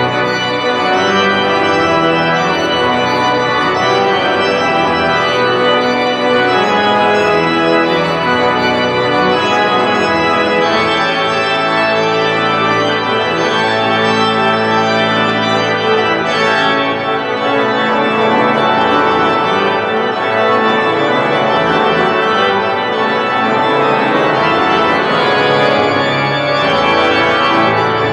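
Washington National Cathedral's pipe organ playing a piece in loud, full sustained chords over held low bass notes.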